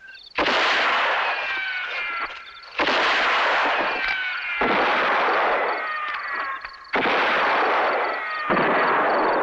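Gunshot blasts with ricochet whines, heard as five sudden loud blasts. Each trails off over a second or two with several falling whistling tones.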